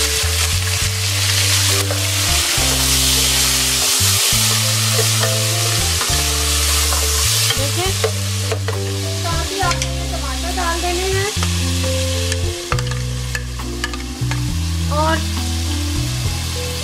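Cubed potatoes sizzling in hot oil in a pot, stirred with a wooden spoon; the sizzle is strongest in the first half and eases off after about eight seconds. Background music with low held notes plays underneath.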